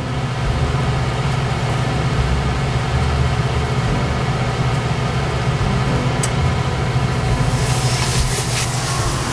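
A steady low mechanical hum with an even rushing noise, running unchanged throughout.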